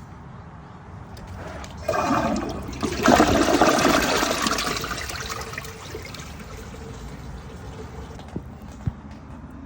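Toilet flushing: a rush of water starts suddenly about two seconds in, is loudest for a couple of seconds, then dies down to the quieter sound of water running as the tank refills. Two small clicks near the end.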